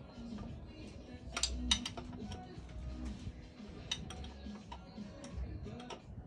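Metal hand tool clicking and clinking on a 5/8-inch bolt of an outboard's lower unit as it is loosened, a few sharp clicks spread irregularly.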